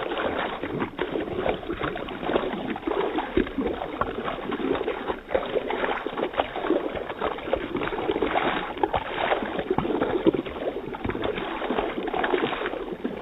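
Water sloshing and splashing continuously and unevenly as toys are moved around in a small pool of water.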